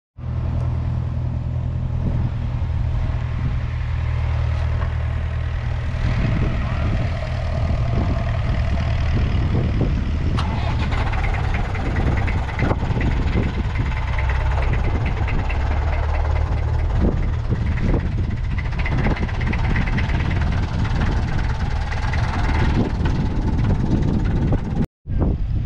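A John Deere 6400 tractor's 4.5-litre four-cylinder diesel engine idling steadily, with a brief dropout near the end.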